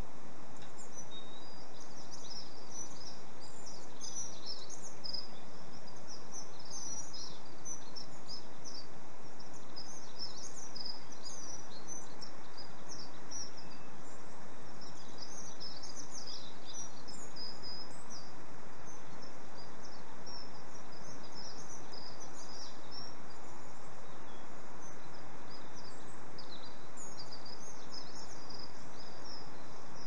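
Small garden songbirds chirping and singing: a dense, continuous run of short high chirps and trills over a steady background hiss.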